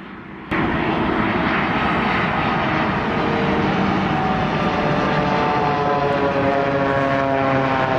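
Boeing 787 airliner flying by on landing approach with its ram air turbine deployed. The turbine's spinning blades give a propeller-like buzz over the jet noise, heard as several tones gliding slowly down in pitch. It starts abruptly about half a second in. The turbine deploys for emergency power when both engines fail or electrical or hydraulic pressure is lost.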